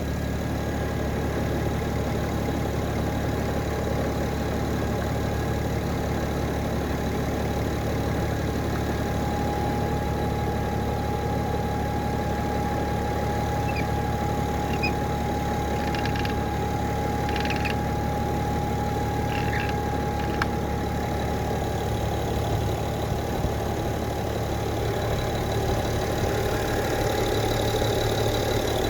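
Car engine, which has a blown head gasket, idling steadily, with a steady high whine from a connected battery charger. A few faint clicks come about halfway through.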